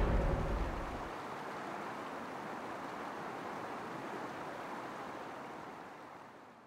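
A low rumble dies away in the first second, leaving a steady rushing noise that fades out near the end.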